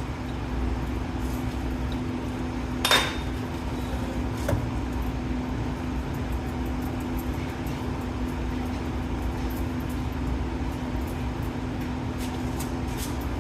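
Metal lathe running with a steady hum. A sharp metallic clink comes about three seconds in, and a smaller knock a second and a half later.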